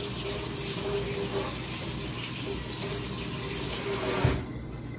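Kitchen tap running in a steady stream, then shut off about four seconds in with a short knock.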